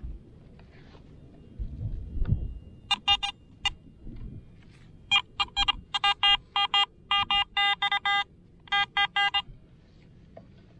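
Garrett AT Gold metal detector beeping as its coil is swept over a freshly dug hole: a few short beeps about three seconds in, then a fast run of same-pitched beeps, about three a second, for some four seconds, signalling a buried coin. Soft low scuffing of soil and grass comes before the beeps.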